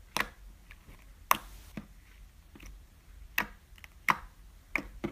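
Clear glittery slime being poked and stretched by fingers, giving sharp, irregular clicks and pops, about seven in five seconds, the loudest just over a second in.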